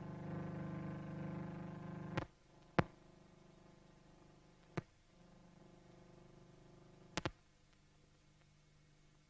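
Faint steady buzzing hum that drops away about two seconds in, leaving low hiss, with four sharp clicks scattered through it: the background noise of an old newsreel film soundtrack with no recorded sound of its own.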